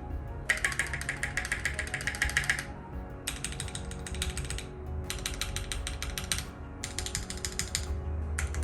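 Typing on a Keychron Q1 aluminium-cased mechanical keyboard for a sound test: runs of rapid key clicks, each a second or two long, with short pauses between them.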